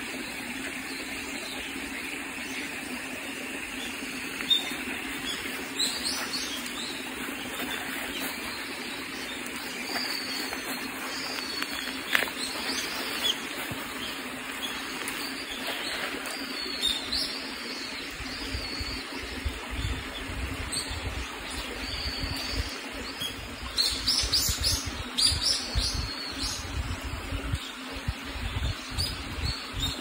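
A shallow mountain stream running steadily over rocks, with small birds chirping on and off, more of them near the end. A low rumble joins past the middle.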